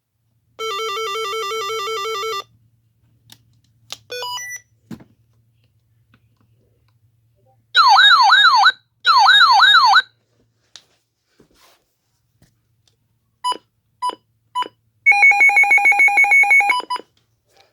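Electronic siren and alarm tones from a radio's built-in siren, stepping through different patterns: a buzzing pulsed tone, a few short beeps, two short bursts of fast up-and-down yelp, three single beeps, then a rapid pulsed tone near the end.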